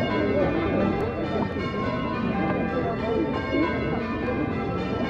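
Church bells pealing, many overlapping ringing tones sounding on without a break, with a murmur of voices beneath.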